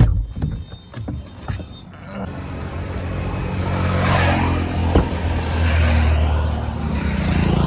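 A car on the move: engine and road noise with a few knocks at first, then a steady low rumble and rushing noise that grows louder from about two seconds in.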